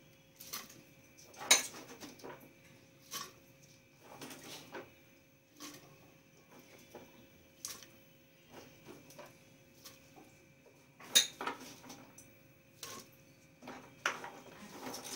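Pieces of cut vegetables dropped by hand into an empty metal pressure cooker, landing with irregular knocks and clatters against the pot. Two knocks are much sharper and louder than the rest, one soon after the start and one about two-thirds of the way through.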